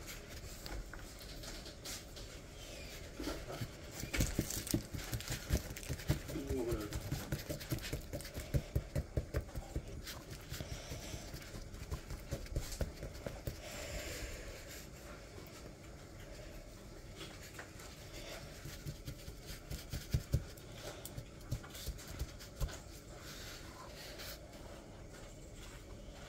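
Plastic digging tool scraping and chipping at a plaster dig-kit egg, in quick scratchy strokes with crumbly bits breaking off, busiest in the first half and lighter later.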